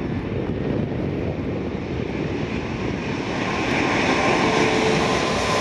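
Airbus A340-500 on final approach with its landing gear down, its four Rolls-Royce Trent 500 turbofans making a steady rushing noise that grows louder as it comes in low overhead. A high whine joins the rush near the end.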